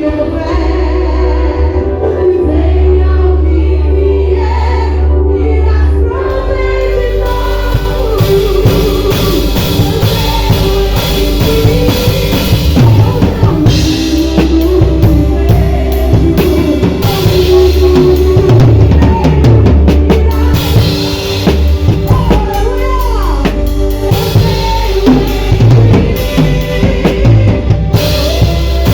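Loud music with a drum kit: bass drum, snare and rimshots over a heavy bass and a melodic line. The drums fill out about seven seconds in.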